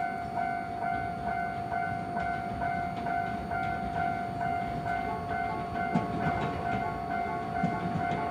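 Japanese level-crossing warning bell ringing in an even, repeating ding about two and a half times a second. From about six seconds in, the low rumble of an approaching Iyotetsu 610 series train rises under it.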